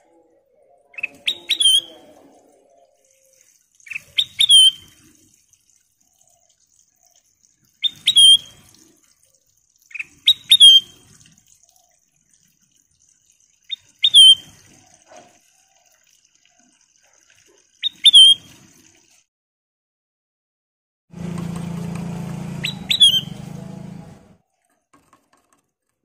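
Caged kutilang emas (golden bulbul) giving short, sharp chirped calls, six of them a few seconds apart. Near the end about three seconds of rushing noise with a low hum come in, and the bird calls once more over it.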